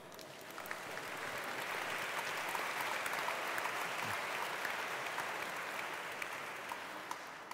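Audience applauding: many hands clapping that swell over the first couple of seconds, hold, then die away near the end.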